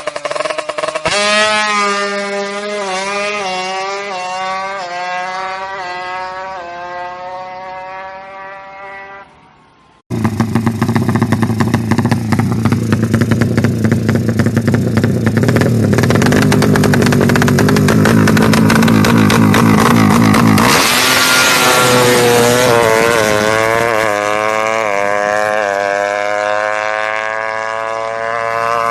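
Drag-racing motorcycle engine pulling hard, its pitch climbing in a series of rising steps and fading as it draws away. After a sudden cut, a motorcycle engine is held at high revs for several seconds, then climbs in steps again and fades.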